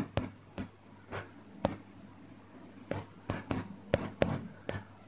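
Keystroke taps from typing on a smartphone's on-screen keyboard: about a dozen short clicks at an uneven pace, a few spaced out at first and then a quicker run in the second half.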